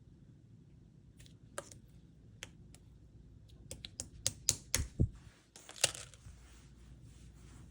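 Slime being pressed and squished, making crisp clicking and popping sounds as air pockets burst. A few scattered clicks come first, then a quick run of about a dozen loud ones in the middle.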